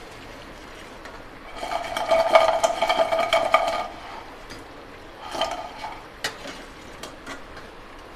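Slotted steel skimmer scraping and knocking against a steel frying pan while lifting deep-fried medu vadas out of hot oil, the metal ringing: a long clattering scrape about two seconds in, a shorter one past the middle, then a few single knocks. The oil bubbles faintly underneath.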